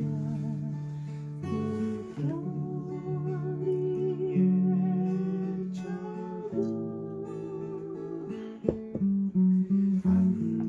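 Background music led by an acoustic guitar, its notes held and changing every second or two.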